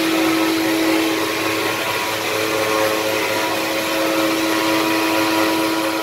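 A machine's motor runs steadily, a strong even hum with higher tones over a wide hiss.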